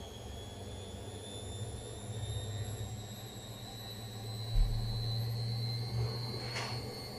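Gorenje washing machine on its spin cycle, speeding up: the motor's high whine climbs slowly in pitch over a steady low hum. There is a heavy thud about four and a half seconds in and a short swish near the end.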